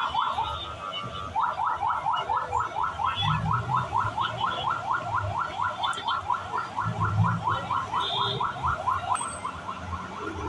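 Electronic siren sounding a rapid yelp: quick rising sweeps, about five a second, starting a little over a second in and carrying on without a break.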